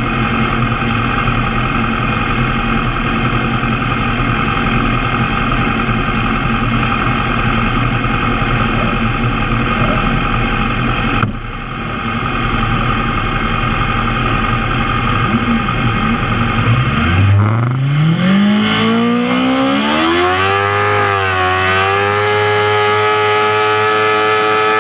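A kart cross 600's motorcycle engine idles steadily, heard from the cockpit. About seventeen seconds in, the revs climb smoothly and are then held at a high, steady note while the kart stays in place.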